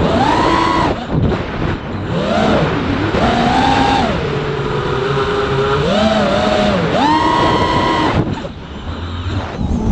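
FPV quadcopter's motors and propellers whining, the pitch sliding up and down again and again with the throttle. The whine fades and thins briefly about a second in, and again for over a second near the end.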